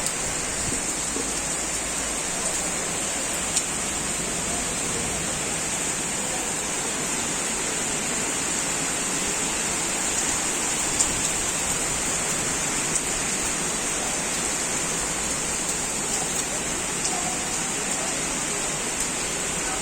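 Heavy rain falling in a steady downpour, with a few sharp taps of drops striking a surface.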